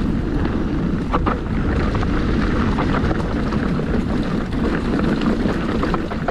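Wind buffeting the microphone of a handlebar-mounted action camera on a mountain bike descending at speed, over tyres rolling on rocky dirt and the bike rattling, with scattered small clicks and knocks.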